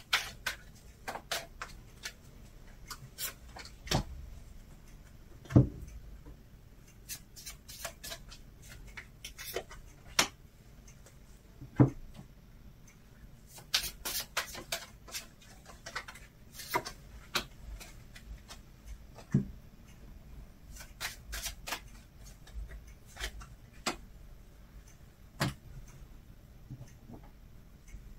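Oracle cards being handled and dealt by hand: light flicks and rubs of card stock, with a louder soft thump every few seconds as a card is set down on the table.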